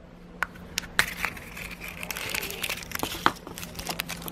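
Pink plastic gashapon capsule clicking and popping open, then the crinkle of the thin plastic bag around the figure inside as it is handled, with another sharp click near the end.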